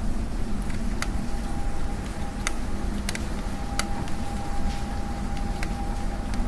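Rain at an apartment window, with a few sharp drip taps, over a steady low rumble of city traffic.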